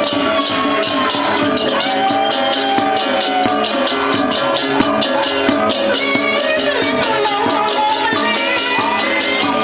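Balinese gamelan music, loud and continuous: fast, steady cymbal strokes about five a second over drums, with pitched metallic bronze tones and a gliding melodic line above.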